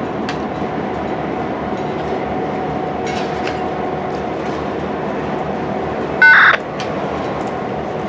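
CN freight train rolling slowly through a switching move, a steady rumble with light clicking. A short, loud electronic beep sounds about six seconds in.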